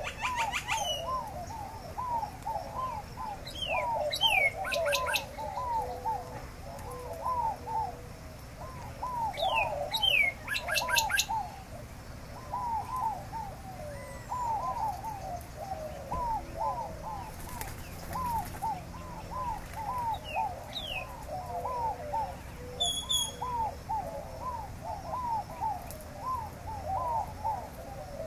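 A chorus of birds calling, a steady stream of short arching low notes, with now and then a quick run of high chirps or a trill.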